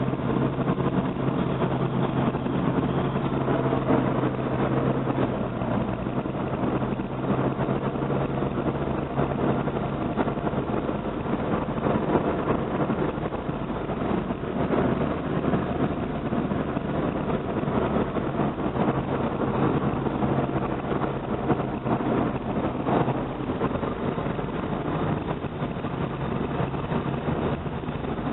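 Steady engine and road noise heard from inside a moving car, with a constant low hum.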